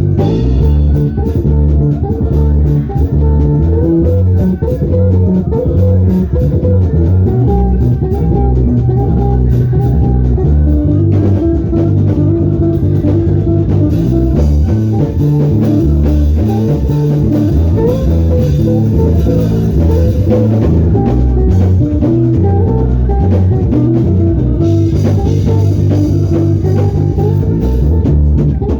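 Instrumental band music with electric guitar, bass guitar and drum kit playing steadily, the bass prominent.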